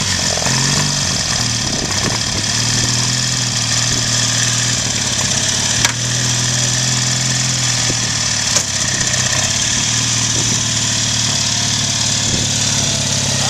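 1955 Triumph TRW 500cc side-valve parallel-twin motorcycle engine idling steadily through its single two-into-one exhaust, just after catching on a cold start; its pitch settles slightly in the first second or two. Two sharp clicks about 6 and 8.5 seconds in.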